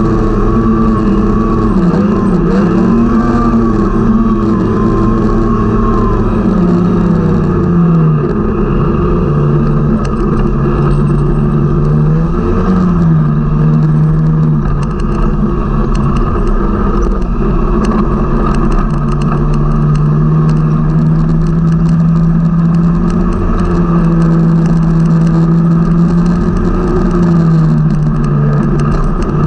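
Snowmobile engine running steadily under way, its pitch wavering with the throttle: it settles lower about eight seconds in, then briefly rises and drops back a few times.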